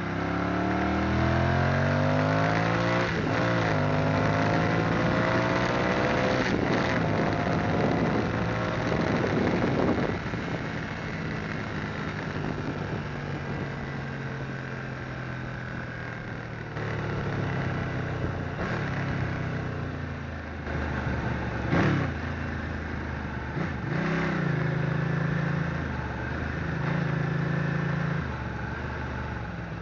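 Sport motorcycle's engine heard from on board, accelerating hard with a rising note broken by two upshifts in the first ten seconds. It then drops to a lower, steadier note off the throttle, with one brief louder rev about two-thirds of the way in.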